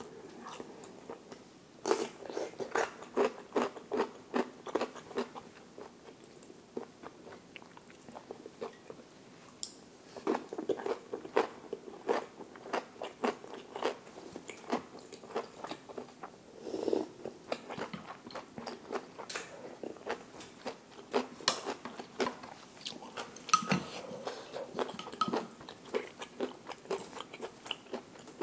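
Close-miked chewing and crunching of seokbakji, crisp radish kimchi, in runs of sharp crunchy bites with short pauses between them.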